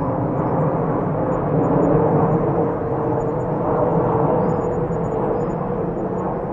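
Toy Boeing 747 airliner's built-in jet-engine sound effect, a steady rush with a faint whine through it, played from a small speaker while its lights flash.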